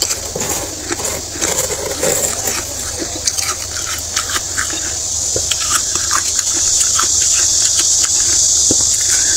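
Thick freezer frost crunching and crackling in many small crisp crunches as it is scooped out, over a steady hiss that grows louder in the second half.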